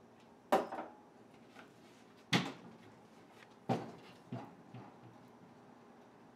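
Three sharp knocks about a second and a half apart, followed by a couple of lighter taps: a kitchen cupboard door being opened and shut and a drinking glass set down on the counter.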